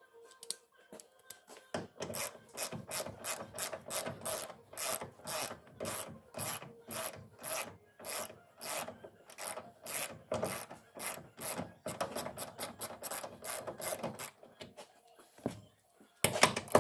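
Ratchet wrench clicking back and forth as it loosens a door hinge bolt, a steady run of short raspy strokes at about three a second that stops about two seconds before the end. A louder clatter comes just before the end.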